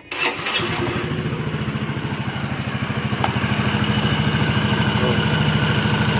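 Yamaha Mio Soul i 115 scooter's single-cylinder engine starting at once and settling into a steady, evenly pulsing idle. It is running with a newly fitted drive belt in the continuously variable transmission (CVT), which now turns smoothly and no longer wobbles.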